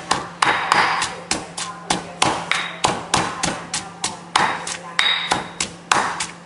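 Wooden pestle pounding moist curry paste of shallots, dried chillies and lemongrass in a stone mortar, about three thuds a second, under a steady low hum.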